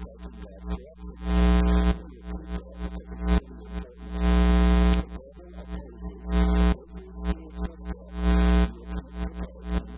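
Electrical mains hum and buzz on the audio feed, swelling loud four times in bursts of about half a second to a second, with a lower rough buzz between them.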